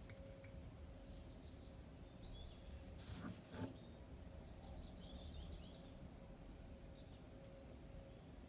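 Faint background ambience: a low steady rumble with a thin hum, and scattered short high chirps like small birds. A couple of soft knocks come about three seconds in.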